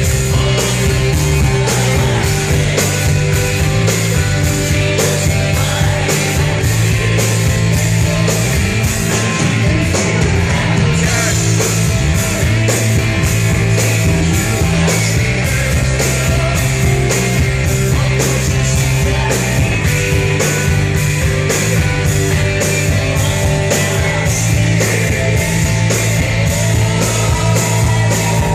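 Rock band playing live: drums keep a steady beat under electric guitars and bass.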